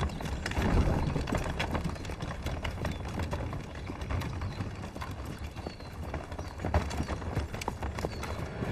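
Horses' hooves clip-clopping at a walk on a gravel road, with the low rumble and rattle of horse-drawn wooden carts rolling along.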